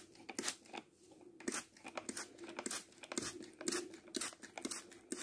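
Hand trigger spray bottle squirting water onto the potting soil of freshly sown seed pots, in short repeated pumps coming about two or three a second.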